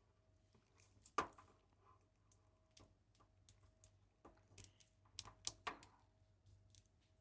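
Faint, scattered clicks and taps of a plastic action figure and its accessories being handled, with the sharpest about a second in and a small cluster between five and six seconds.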